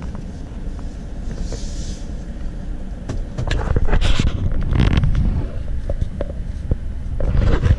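Car running along a street, heard from inside the cabin: steady low engine and road rumble, with a run of sharp knocks and rattles from about three seconds in and again near the end.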